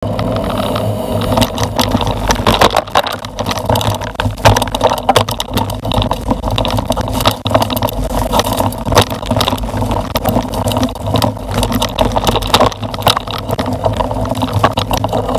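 Mountain bike riding over rough ground: tyres rolling and the bike and its mounted camera rattling with a dense run of irregular knocks and jolts.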